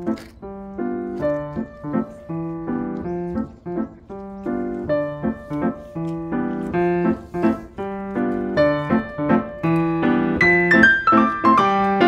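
Gentle piano background music: a repeating pattern of struck notes and chords that grows louder toward the end.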